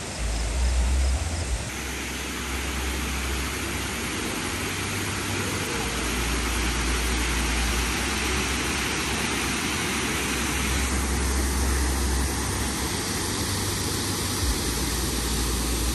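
Steady rushing of a waterfall, with wind buffeting the microphone in a gusty rumble underneath.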